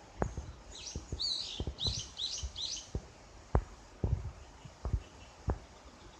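A small bird chirping: a quick run of about five high chirps about a second in, over scattered low thumps.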